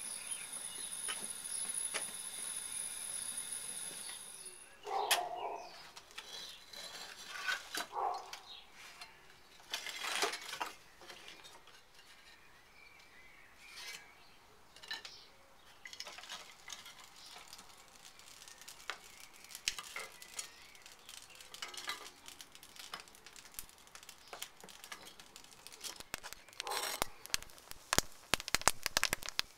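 A steady burner hiss that stops about four seconds in, then scattered clatters and knocks of wood and kiln parts being handled as wood is stoked into a gas-fired stoneware kiln's firebox for heavy reduction at the end of the firing. Near the end the burning wood crackles and pops.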